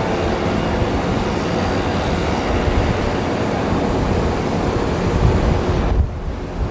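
Wind buffeting the camcorder microphone: a loud, steady, uneven rumble with a dense hiss over it. The hiss thins and the level drops slightly about six seconds in.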